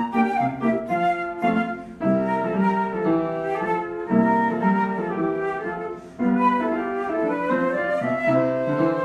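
Instrumental background music: a melody of held notes, in phrases of about two seconds.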